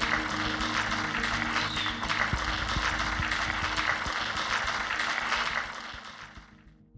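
Audience applause over background music, both fading out near the end.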